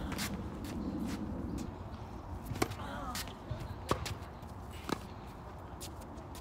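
Tennis rally on a hard court: sharp pops of the ball off the racquet strings and bouncing on the court, the three clearest about two and a half, four and five seconds in.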